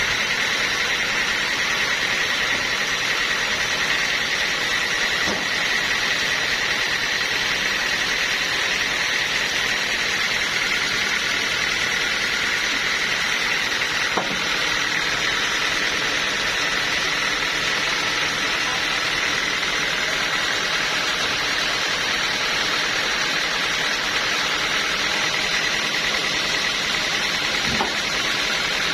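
Sawmill saw running steadily, a constant noisy whine with a high, held tone and no change in pace, with a couple of faint knocks.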